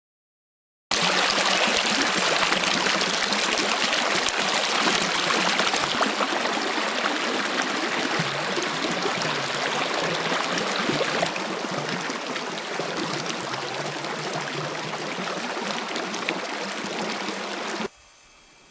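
Creek water rushing steadily, starting suddenly about a second in, dropping a little in level about halfway through, and cutting off abruptly near the end.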